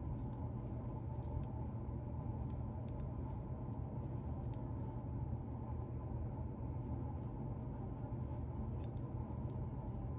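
A bearded chin being scratched through the beard hair, a steady close-up scratching with faint tiny clicks scattered through it.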